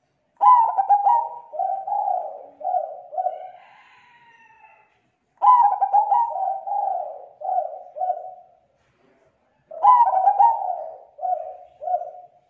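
Zebra dove (perkutut) cooing three times. Each phrase opens with a quick stuttering run of notes and ends with three or four slower, separate coos.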